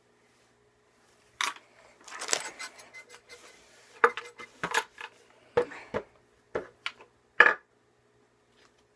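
Small metal parts being handled: irregular sharp clinks and knocks, about a dozen, with a brief rattle early on, as a screw and drill are picked up and set in place.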